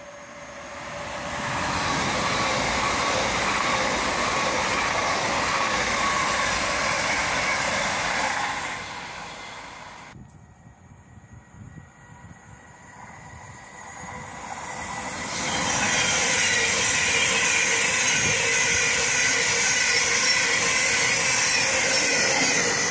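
Two passenger trains passing at speed. The first is loud for about seven seconds and then fades. After a cut, a Thameslink Class 700 electric multiple unit builds up and runs past close by, loud for the last several seconds.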